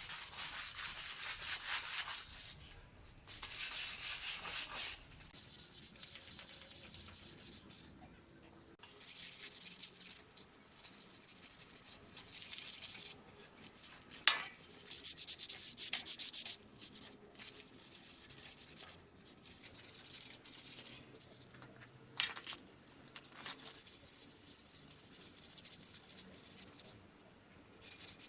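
A rusty metal dish rack being rubbed with an abrasive to take off the rust, in bursts of rapid scraping strokes a few seconds long with short pauses between them. There is a sharp tap about halfway through.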